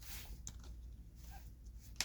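Faint rustling with a few light clicks from hands handling large Pokémon cards, the rustle strongest in the first second.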